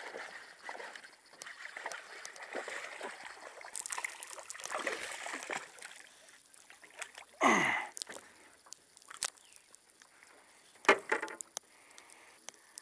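Hooked largemouth bass splashing and thrashing at the water's surface beside an aluminum jonboat as it is played in. A sharp knock comes near the end as the fish is brought aboard.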